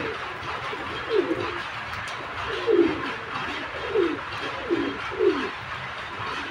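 Domestic pigeons cooing: a run of short, low coos that fall in pitch, about one a second.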